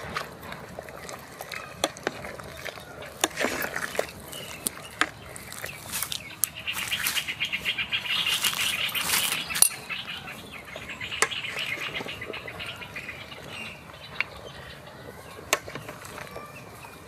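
Birds chirping outdoors in a fast, rapidly pulsing trill for a few seconds in the middle, fainter again a little later, over scattered sharp clicks and knocks.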